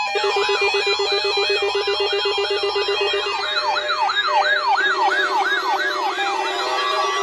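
Several electronic alarm sirens sounding together, set off by a weather-radio weekly test alert. Their pitches sweep up and down a few times a second, and about halfway through one sweep grows slower and wider. A steady, rapidly pulsing buzz tone sounds beneath them.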